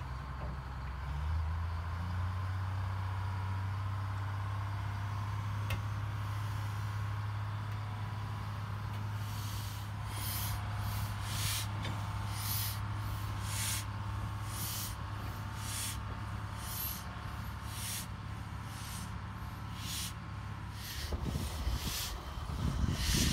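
Small diesel shunting locomotive's engine running steadily, a low hum that drops away near the end. From about halfway in, short sharp hisses come one or two a second.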